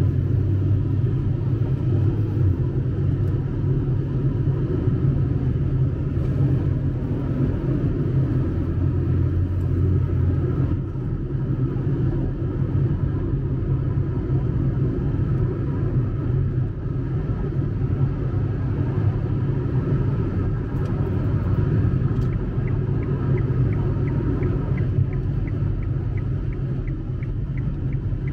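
Steady low rumble of a car driving on a wet road, heard from inside the cabin: engine and tyre noise. About two-thirds of the way through, a light, even ticking joins in at about three ticks a second.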